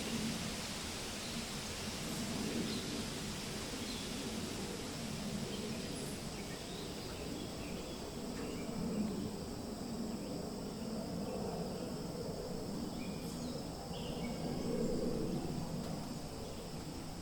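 Wind rustling through forest leaves, swelling and easing in gusts every few seconds, with a few faint, short bird chirps scattered over it.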